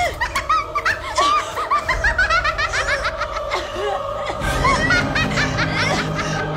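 A woman laughing gleefully in quick, high-pitched peals over a low, droning horror-film score.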